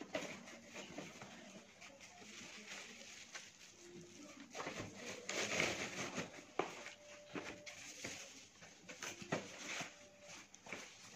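Irregular rustling and light knocks of packaging being handled: a bubble-wrapped parcel and a cardboard phone box moved about on a table.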